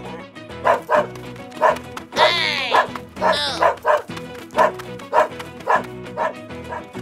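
A dog barking repeatedly, about two barks a second, with a couple of longer rising-and-falling yelps near the middle, over steady background music.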